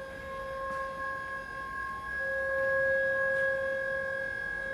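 STILL EK-X electric order picker raising its operator platform: a steady, even-pitched whine that gets louder about two seconds in.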